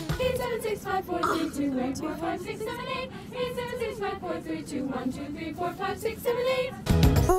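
Young women singing a melody together without accompaniment, a cappella. A pop music track cuts back in briefly near the end.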